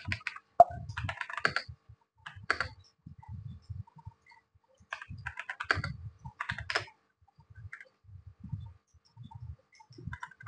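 Typing on a computer keyboard: irregular bursts of keystrokes separated by short pauses.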